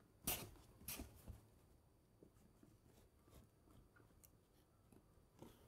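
A brown paper bag crinkling and rustling as it is handled close to the microphone, with three sharper crackles in the first second and a half, then faint small rustles and ticks.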